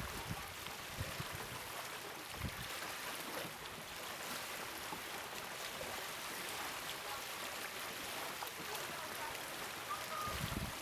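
Steady outdoor background hiss, with low rumbling gusts of wind on the microphone near the end.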